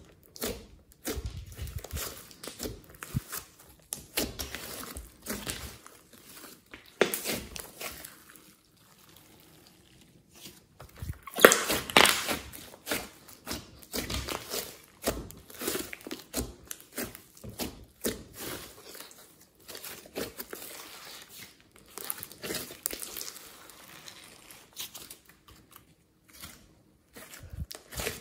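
Hands kneading, pressing and stretching a large mass of glossy slime mixed with clay and foam, making irregular sticky crackles and small pops as air pockets squish and burst. It is busiest and loudest around the middle.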